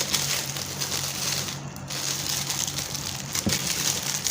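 Wrapping being crinkled and rustled by hand as a book is unwrapped, with many small irregular crackles.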